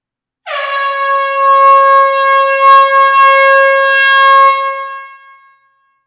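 Air horn sounding one long blast: a single steady tone that starts abruptly about half a second in, holds for about four seconds, then trails off.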